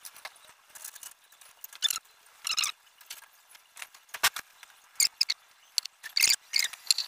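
Cloth wiping and rubbing a fat bike wheel's hub, rim and tyre: irregular short rubbing strokes, a few of them loud, with a couple of light knocks.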